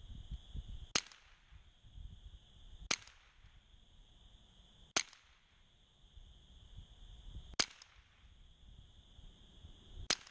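Sears Ted Williams Model 3T .22 rifle firing five single shots at an unhurried pace, about two to two and a half seconds apart.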